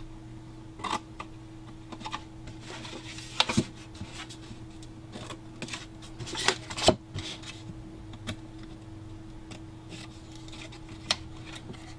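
Scissors snipping card and the card being rustled and handled on a cutting mat: scattered sharp clicks and rustles, the loudest about a third of the way in and just past halfway, over a faint steady hum.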